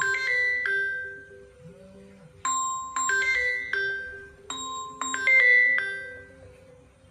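Phone ringtone for an incoming call: a melody of struck, bell-like notes in short phrases, each note ringing out and fading, dying away near the end.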